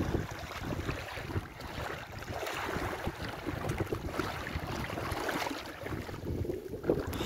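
Sea water splashing and sloshing around a person wading waist-deep, with wind rumbling on the microphone.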